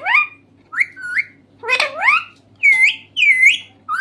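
Pet green parrot calling: a string of about five short, whistled calls and squawks, several sweeping sharply up in pitch, the last two dipping and rising again.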